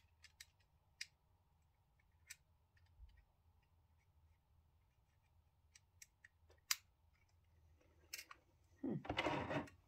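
Scattered sharp, small clicks and snaps of plastic parts being handled and fitted onto an OO gauge model steam locomotive, about eight in all. A short burst of voice near the end is louder than the clicks.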